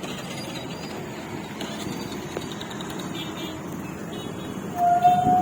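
Steady low rumble of a river ferry's engine under way. Near the end a short, steady horn sounds and is the loudest thing heard.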